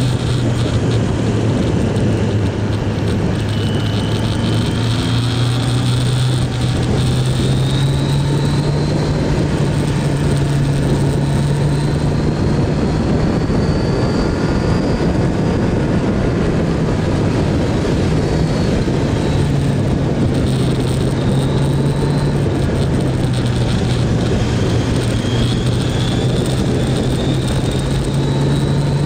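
Kawasaki GPZ900R's inline-four engine running under way, its pitch rising and falling with the throttle through the bends, with a higher whine that climbs several times. Heavy wind noise on the microphone runs under it.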